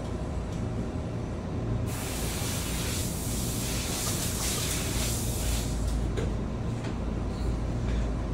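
Steady low hum of background noise, with a hiss that comes in about two seconds in and dies away near six seconds.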